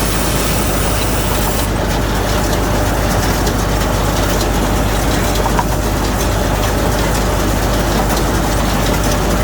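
Hay baler machinery and the engine driving it running: a loud, steady heavy-engine noise with a constant low hum.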